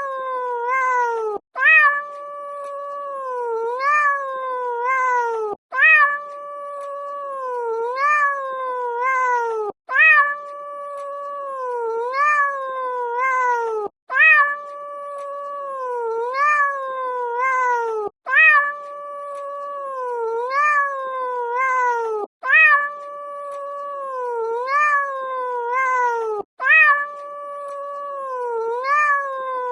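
Kitten meowing over and over, high-pitched sliding meows in a run that repeats about every four seconds, each run broken off by a brief gap.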